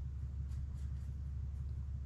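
Steady low hum of background noise in a workshop, with a few faint light ticks.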